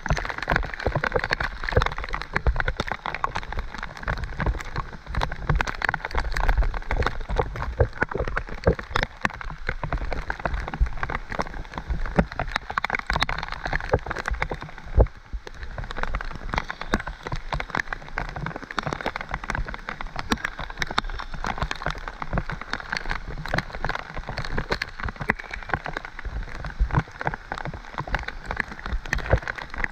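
Heavy tropical downpour: dense, rapid raindrop ticks hitting a helmet-mounted camera over a steady rain hiss, with a low rumble underneath from a mountain bike rolling down a wet, muddy trail.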